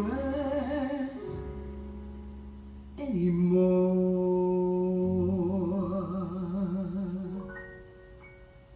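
A recorded ballad playing through a KT88 valve amplifier and home-built four-way speakers: a voice holds the closing notes with a wavering vibrato over sustained accompaniment, and the song ends and dies away after about seven and a half seconds.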